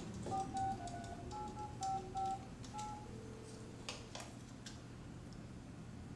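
Cordless phone keypad tones as a number is dialled: about seven short two-tone beeps, a few per second. About three seconds in comes one short low steady tone, then a few faint clicks, all heard through a television's speaker.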